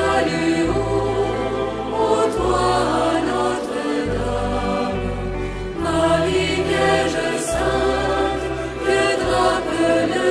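Choir singing a French Marian hymn with accompaniment, over sustained bass notes that change about every second or two.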